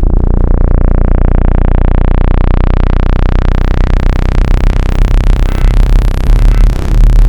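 Synthesized water-eject sweep tone, made to vibrate trapped water out of earbud speaker mesh: a loud, steady low hum layered under a hiss that sweeps steadily higher in pitch, with a brief dip in loudness near the end.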